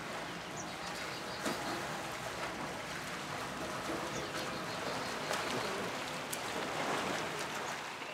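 Steady wash of splashing water from swimmers doing laps in an outdoor pool, with a few faint bird chirps.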